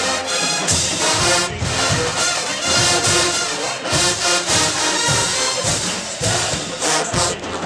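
Marching band with sousaphones, horns and drums playing a loud brass-heavy tune over a steady drum beat.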